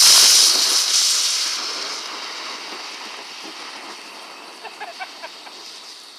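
Homemade firework of sparkler composition fizzing as it burns: a loud hiss of spraying sparks and flame, strongest in the first second and slowly dying down.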